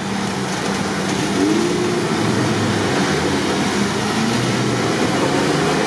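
Engines of off-road vehicles running steadily around a muddy water crossing, mixed with outdoor noise.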